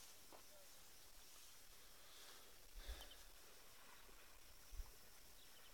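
Near silence: faint background hiss, broken by two brief low thumps about three and five seconds in.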